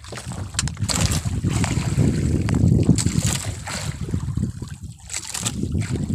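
Wind buffeting the microphone over water slapping against a small fishing boat's hull. Several brief, sharp knocks are scattered through it.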